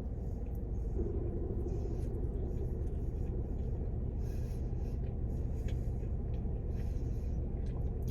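Steady low rumble of a car idling, heard inside the cabin, with scattered small clicks and rustles from eating.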